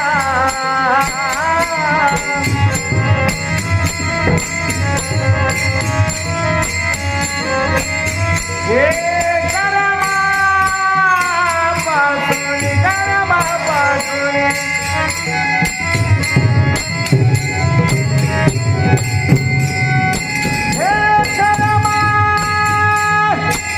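Devotional bhajan music: a voice holds long notes that slide up into pitch, over steady jingling percussion and a drum.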